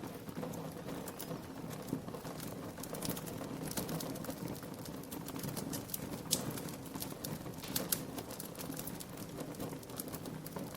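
Wood fire crackling: irregular sharp pops and snaps, loudest a little past halfway, over a steady low rumble.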